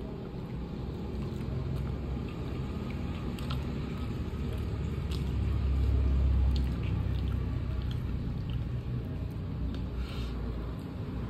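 Eating sounds of a hand squishing and picking up chicken kottu on a plate, with chewing and small wet clicks. Under them runs a steady low rumble that swells about halfway through and then eases.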